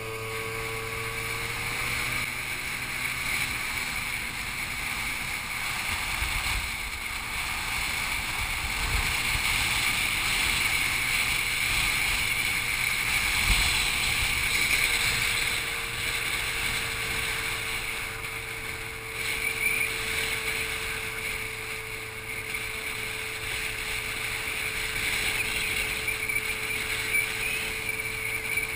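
Scooter riding at road speed: wind rushing over the microphone with the scooter's engine running steadily underneath, and gusts of low buffeting now and then.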